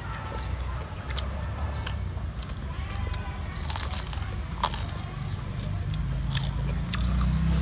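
Close-miked eating: chewing, biting and lip-smacking as people eat soft Cambodian cakes, heard as many scattered short clicks and smacks. A steady low rumble runs underneath and grows louder near the end.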